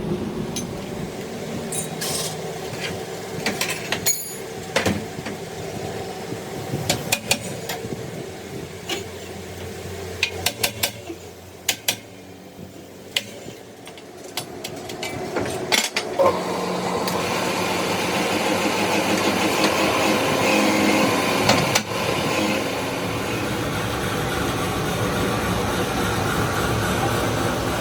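Scattered metallic clinks and knocks of tools being handled against metal parts; about sixteen seconds in, a motor-driven machine starts and runs steadily.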